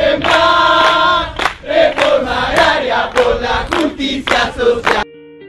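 A crowd chanting together loudly, with sharp hits scattered among the voices. The chant cuts off abruptly about five seconds in, and a few soft sustained music notes begin.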